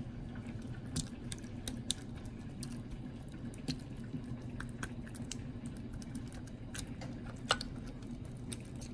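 A fork turning raw, marinated chicken wings in a metal baking pan: wet squishing of the meat with scattered clicks of the fork against the pan.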